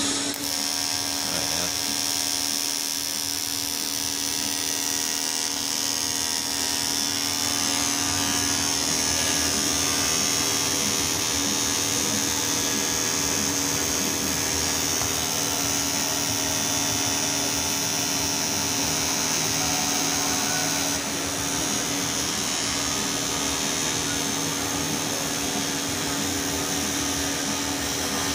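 AC TIG welding arc buzzing steadily with a high hiss as a crack in an aluminium mountain bike frame is welded. The arc strikes sharply at the start, and the buzz dips briefly about three quarters of the way through.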